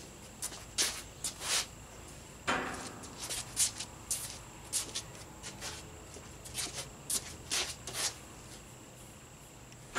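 Irregular shoe scuffs and short, sharp clicks and knocks: footsteps on a concrete floor and hands taking hold of a bare steel go-kart frame.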